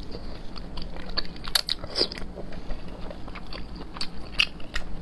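Close-up mouth sounds of a person biting and chewing soft, sauce-coated braised pork belly, with many irregular sharp clicks.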